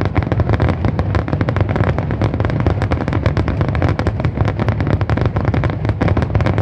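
Rapid-fire barrage of aerial firework shells bursting: dense, sharp bangs many times a second over a continuous deep rumble.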